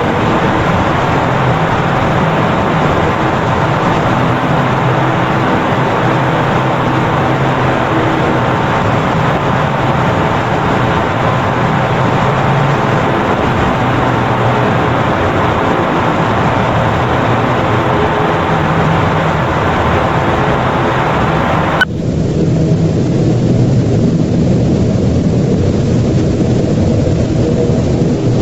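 Loud, steady rumbling noise with a few faint humming tones in it. About 22 seconds in it cuts off sharply into a duller, muffled version with the top end gone.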